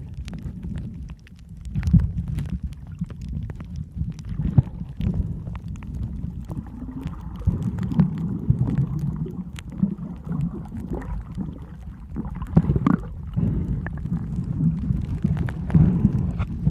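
Water sloshing and gurgling with an uneven low rumble and scattered light clicks, as heard by a camera moving through water.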